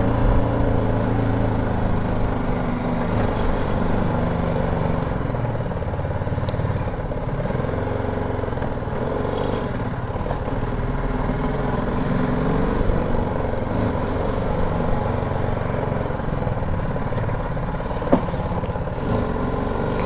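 Motorcycle engine running at low speed, its pitch rising and falling gently with the throttle, over a low rumble. A single sharp click about two seconds before the end.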